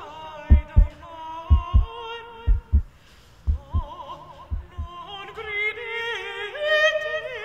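A woman singing operatically with a wide vibrato, over a heartbeat: a low double thump about once a second that stops about five seconds in.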